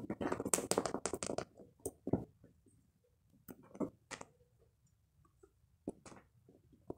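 Scratching and scuffling on a carpet rug: a dense run of quick scratches for the first second and a half, then scattered soft clicks and taps.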